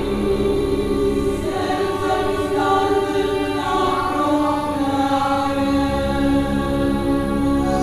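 Opera choir singing long held chords, the harmony shifting every second or two. A low drone beneath drops away after about a second and a half and returns about six seconds in.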